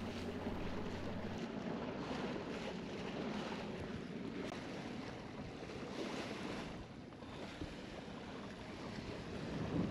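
Water rushing and splashing along a sailing yacht's hull while under way at sea, with wind buffeting the microphone.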